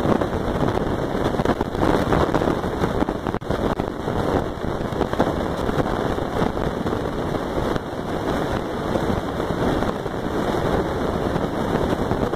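Steady wind noise buffeting the microphone, a continuous low rush with no distinct events.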